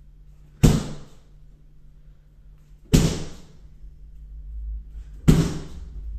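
Three kicks landing on a handheld Blitz kick shield, each a sharp loud slap with a short ring after it, evenly spaced a little over two seconds apart.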